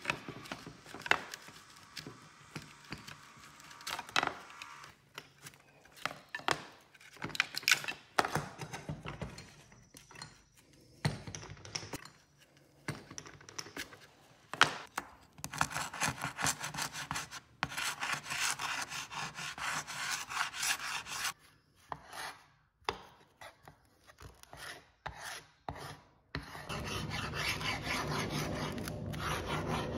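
A hand tool scraping and rubbing on wood in many irregular strokes, with sharp knocks between them. About 26 seconds in, a steady, even noise takes over.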